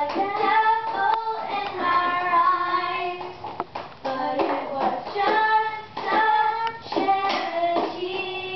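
Young girls singing in phrases of held notes with short breaks, the off-key 'bad singing' of a singing fail.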